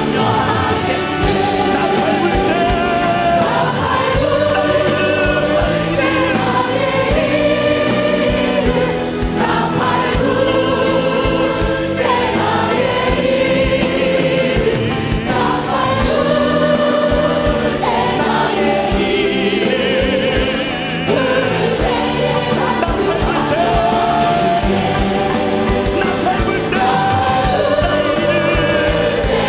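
Many voices singing a Korean hymn together in held, wavering notes, over steady instrumental backing.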